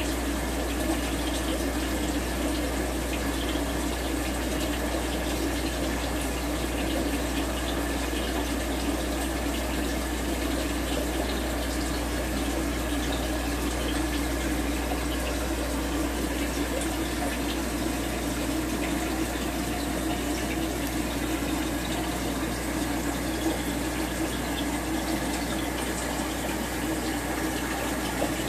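Aquarium filtration running: a steady rush of moving, bubbling water over a low, constant hum.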